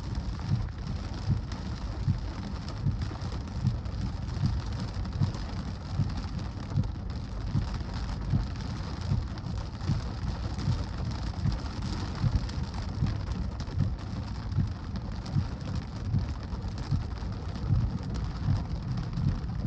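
Heavy rain in a thunderstorm, a steady hiss, with wind gusts buffeting the microphone in frequent irregular low thumps.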